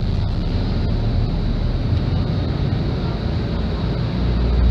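Hino RK8 R260 bus's six-cylinder diesel engine running under way, heard from inside the passenger cabin together with road noise. About four seconds in, a deep engine drone swells and grows louder.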